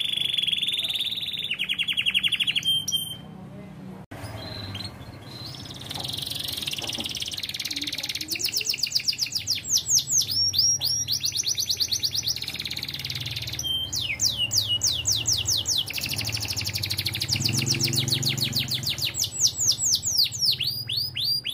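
Domestic canary in full song: a held high whistle at the start, then long runs of rapid trills and quick falling whistled notes, with a brief lull about three seconds in.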